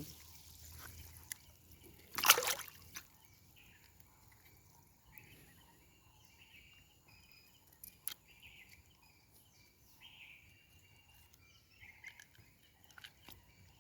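A single splash of river water about two seconds in, then quiet outdoor ambience with faint, intermittent bird chirps and a few small clicks and water sounds.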